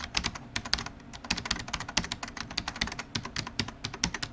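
Rapid keyboard typing: a quick, uneven run of sharp key clicks, about ten a second.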